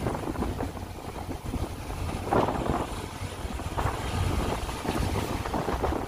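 Diesel-hauled express train running on the line, a steady low rumble with knocks and swells coming and going.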